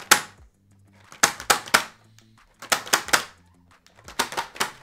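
A cardboard trading-card collector box being shaken, its contents (die, booster packs and promo card) knocking about inside: four bursts of sharp rattling knocks, roughly one every second and a half.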